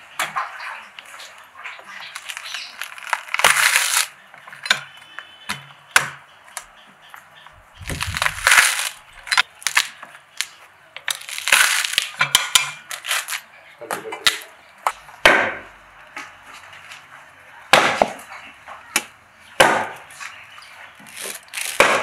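Coconut being husked on an iron spike: a series of sharp cracks and ripping, tearing sounds as the fibrous husk is levered off in pieces.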